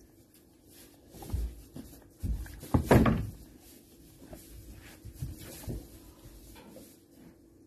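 A plastic teat bucket knocking and thumping against a wooden pen as a calf butts at its teat, several knocks with the loudest about three seconds in, over a low steady hum.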